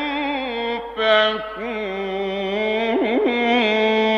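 Male Quran reciter's voice in melodic mujawwad style, drawing out the verse ending 'fa-anna yu'fakun' in long held, ornamented notes. A quick wavering turn comes about three seconds in.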